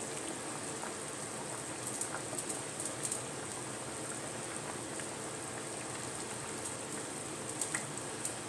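Chicken and ash gourd curry bubbling steadily in a pan, a patter like light rain, with a few light clicks of a wooden spatula stirring against the pan about two to three seconds in and near the end.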